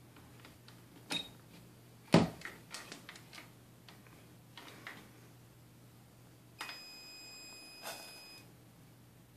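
Clicks and knocks from handling a remote firework-firing receiver, the loudest a sharp click about two seconds in. Later a steady high electronic beep lasting about two seconds sounds as the igniter wire between the clips heats and glows, with a short crackle near the end of the beep.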